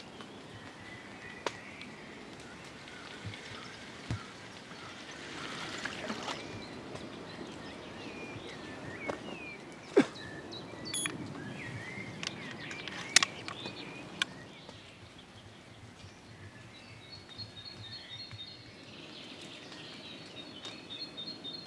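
Open-air ambience with birds singing. A handful of sharp clicks or knocks stand out, and in the last few seconds comes a rapid, evenly repeated chirping.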